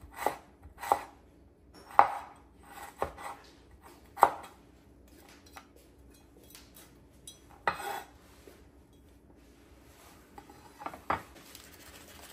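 Chinese cleaver chopping ginger on a wooden cutting board: about half a dozen irregular knocks in the first four seconds. Then a few sparser clatters of the cleaver and a ceramic plate being handled and set down on the board.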